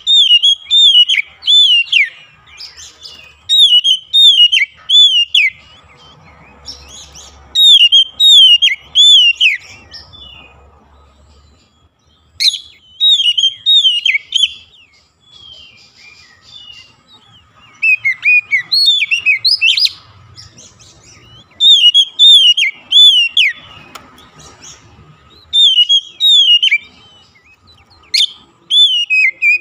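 Oriental magpie-robin (kacer) singing: loud phrases of quick, downward-slurred whistles, repeated in bursts of one to two seconds with short pauses between.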